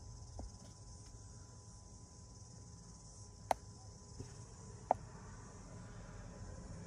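Faint steady hiss of compressed air venting from a Mercedes W211 AirMatic suspension's central reservoir as its pressure is released. Two sharp clicks sound about three and a half and five seconds in.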